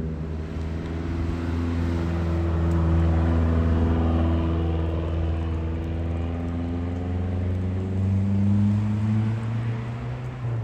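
Lancia Delta Integrale rally car's turbocharged four-cylinder engine running at low revs as it rolls past. The note is steady and drifts gently in pitch, rising a little near the end as the car pulls away.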